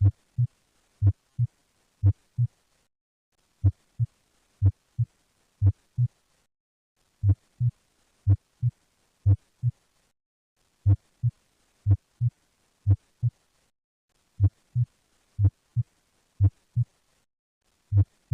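Heartbeat as heard on cardiac auscultation: paired lub-dub heart sounds (S1 and S2), short low thumps repeating about once a second. The recording restarts with a brief pause every three to four seconds. It is a teaching recording of heart sounds in dextrocardia.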